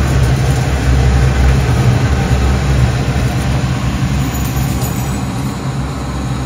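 Kitchen range hood exhaust fan running with a steady low hum.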